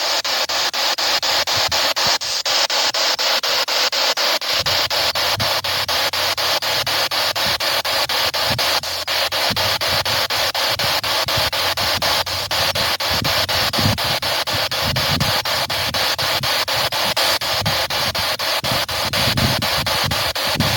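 Spirit box radio sweeping rapidly through stations: continuous static chopped into a fast, even ticking of about five steps a second. From a few seconds in, short fragments of broadcast sound break through the hiss.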